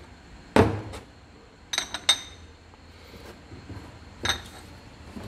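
Small porcelain dishes clinking against one another as they are handled and stacked. There is a dull knock just over half a second in, then short ringing clinks around two seconds and again past four seconds.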